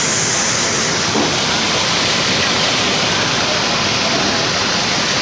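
Maize threshing machine running steadily, a loud, even rushing noise.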